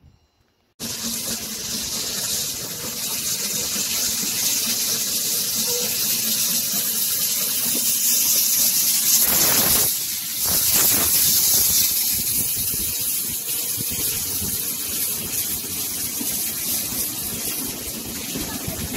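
Steam locomotive letting off steam: a loud, steady hiss with a faint low hum beneath it, dipping briefly about halfway through.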